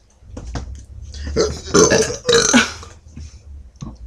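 A person belching loudly: one long, drawn-out burp starting about a second in and lasting over a second, dropping in pitch at the end.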